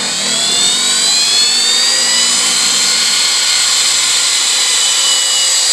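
Home-built 2x72 belt grinder's 2 horsepower treadmill motor running up to a fast speed as its variable speed control is turned up: a loud whine that climbs in pitch over the first couple of seconds, then holds steady.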